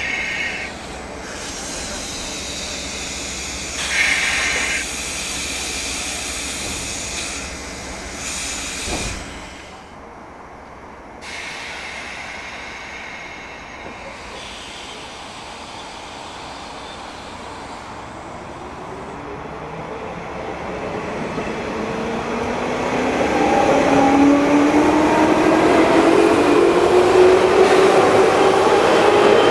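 JR 201 series electric train heard from inside a motor car. For the first ten seconds or so there are a few brief hisses, then it goes quieter. From about twenty seconds in, the train pulls away and the traction motor and WN-drive gear whine rises steadily in pitch and gets louder as it speeds up.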